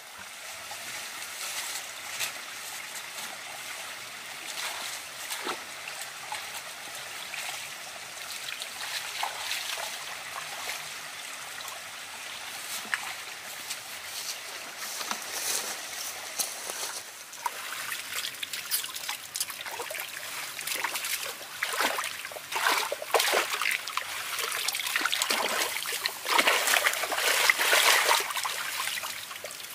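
Water trickling in a small muddy ditch stream, then splashing and sloshing that grows louder over the second half as a hand net is scooped through the shallow water.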